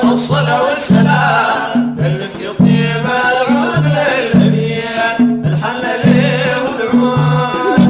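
Sudanese madeeh (Sufi praise song to the Prophet): men's voices singing a wavering, ornamented melody over a steady hand-drum rhythm that alternates a lower and a higher drum stroke about twice a second.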